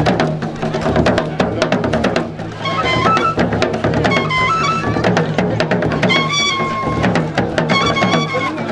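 Traditional Gurunsi funeral drumming: dense, fast beating of drums and percussion. High piping notes, held briefly and stepping up and down, come in about three seconds in and recur in short phrases.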